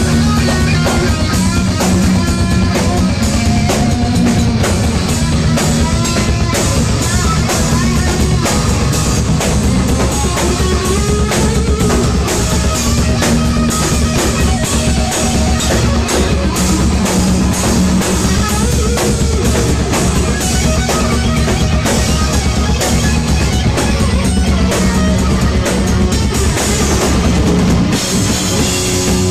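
Heavy metal band playing live: distorted electric guitar over a dense drum kit with pounding bass drum and bass guitar.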